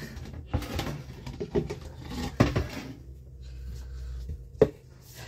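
Kitchen clatter of pots and glass canning jars being handled and set down, a run of knocks with two sharper clacks about two and a half and four and a half seconds in.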